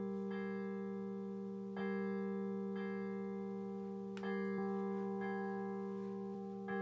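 Schulmerich Campanile Mk III digital carillon tolling a single bell for its call-to-worship bell function. The electronic bell tone strikes about every two and a half seconds, three strokes in all, each ringing on into the next.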